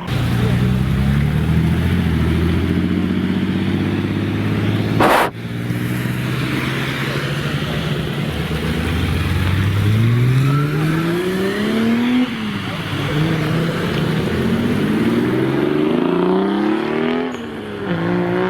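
Toyota Supra's 2JZ straight-six engine running loud. A sharp crack comes about five seconds in. Then it revs up twice under acceleration, the pitch dropping sharply at each upshift, and starts climbing again near the end.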